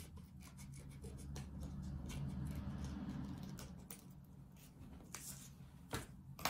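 Small scissors snipping through paper, cutting a wavy edge along a strip, with paper rustling between the cuts. A couple of light knocks near the end.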